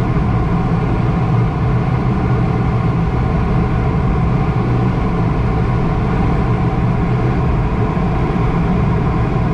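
Steady rush of airflow over a sailplane's canopy in flight, a constant noise with a faint hum.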